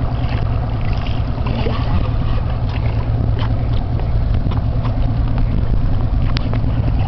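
Boat's outboard motor running steadily at low speed, a constant low hum with a few light clicks over it.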